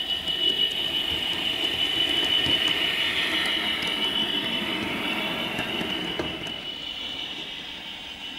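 OO scale Bachmann Class 66 model locomotive running with DCC sound: its sound decoder plays Class 66 diesel engine noise while its wheels run over the track. The sound grows louder as it passes close by, then fades away, with a few faint clicks.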